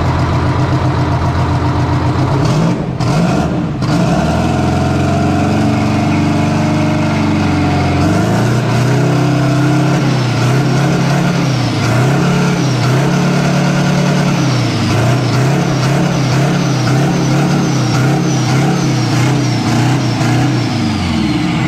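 Detroit Diesel V engine running with no exhaust pipes fitted, on its first start-up. It idles steadily, then is revved up and down over and over from about eight seconds in.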